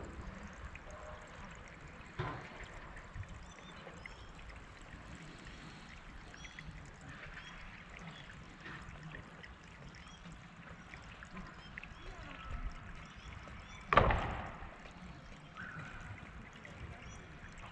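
Quiet outdoor ambience: a steady low rumble with faint high chirps here and there, a small knock about two seconds in and one sharp knock about fourteen seconds in.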